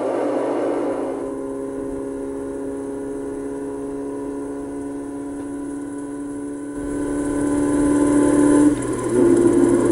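Classic car engine running at a steady speed on an open road. It grows louder about seven seconds in, drops away briefly near nine seconds, then comes back at a slightly higher, steady pitch.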